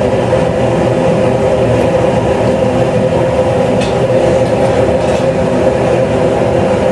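Gas forge burner running: a loud, steady rushing noise with a constant hum.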